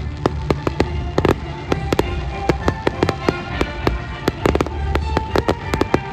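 Fireworks display going off in a rapid run of bangs and crackles, several a second, with a deep rumbling underneath. Music with steady notes plays throughout.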